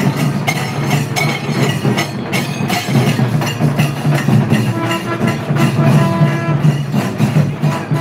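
Live festival music: drums beating in quick strokes, joined about five seconds in by a wind instrument's long held notes.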